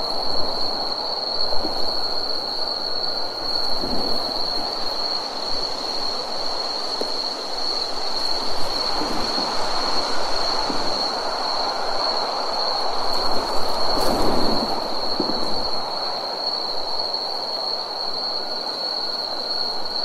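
A chorus of night insects (crickets, cicadas or katydids) keeps up one steady, unbroken high-pitched trill. Beneath it runs a rushing hiss that swells briefly about four seconds in and again about fourteen seconds in.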